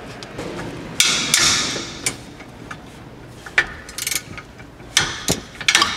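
Metal hand tools clinking and knocking against a front brake caliper bracket and its bolts while a bracket bolt is being undone, with a brief noisy burst about a second in and scattered sharp clicks, several close together near the end.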